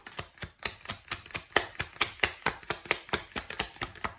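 A deck of tarot cards being shuffled by hand: a rapid, even run of crisp card snaps, about six a second.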